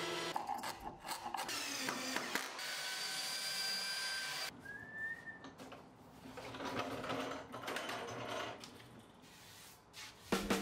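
A benchtop thickness planer running steadily for the first four seconds or so, then a brief high squeak and scattered knocks and rattles.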